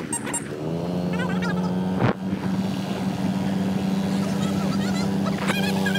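Motorbike engine running under way, its note stepping up about half a second in and then holding steady, with a single sharp knock about two seconds in.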